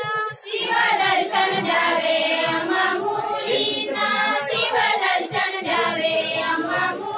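Several women singing a song together in high voices.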